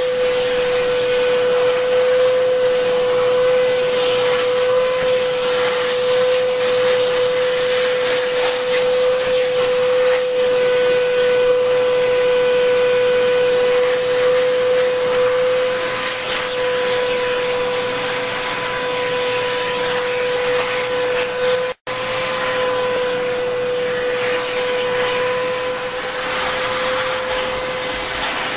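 Vacuum cleaner running steadily with a constant hum, its hose nozzle held against and drawn over a dog's short coat. The sound drops out for an instant about three-quarters of the way in, then carries on.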